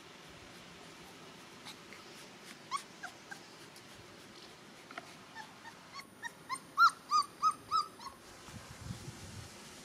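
Gordon Setter puppy whimpering: a few thin, high whines, then a quick run of louder high yelps, about three a second, a little past halfway.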